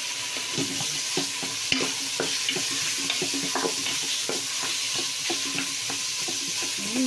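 Ground pork frying with sliced onions and peppers in a stainless steel pot: a steady sizzle while a wooden spatula stirs, scraping and tapping against the pot many times at an uneven pace.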